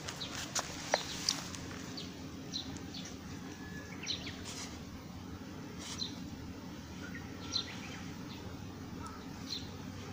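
Small birds chirping now and then in short, high notes over a steady low background hum, with a few sharp clicks in the first second and a half.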